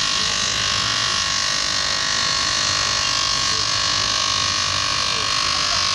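Bench grinder fitted with sanding wheels running steadily, a shoe being sanded against the spinning wheel: an even motor whine with a hiss of abrasive over it.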